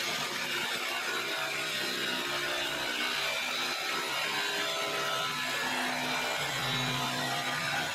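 DeWalt 18 V cordless jigsaw running steadily, its blade cutting through the sheet-metal roof panel of a van.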